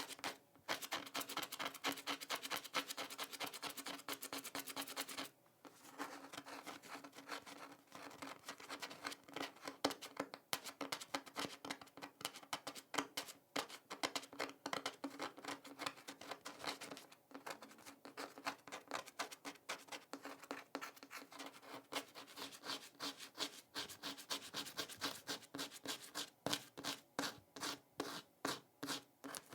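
Scratching on a hard surface: quick, dense scratching strokes with a brief pause about five seconds in. Near the end the strokes come apart into separate scrapes, about two or three a second.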